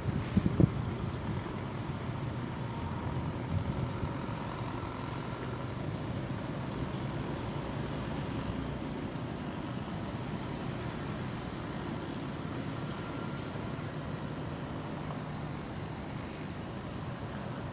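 A steady low engine rumble, like a motor vehicle idling, with a few faint high chirps in the first several seconds.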